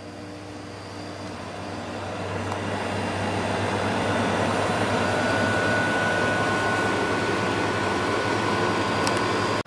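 5,000 BTU Whirlpool window air conditioner with a Rechi Precision compressor starting up: the fan's airflow rises over the first few seconds, then the unit runs steadily with a low hum. A faint thin whine joins about halfway through.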